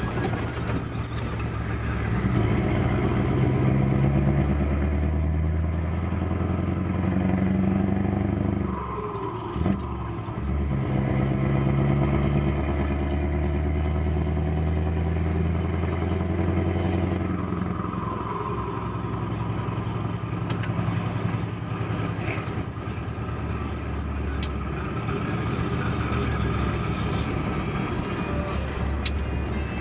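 Scania 164 480's V8 diesel engine pulling the truck along, heard from inside the cab. The note rises as it accelerates, dips briefly at gear changes, the clearest about a third of the way in, then climbs again.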